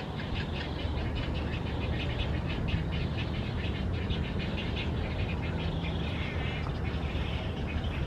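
Yellow-crowned night heron nestlings giving rapid clicking, chattering calls, several a second, which turn into quicker chirps near the end. A steady low rumble runs underneath.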